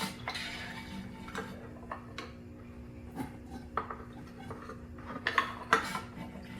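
Scattered light clicks and clinks of a turkey baster working in a small mower's fuel tank and emptying into a container, siphoning out gasoline that has water in it. A faint steady hum runs underneath.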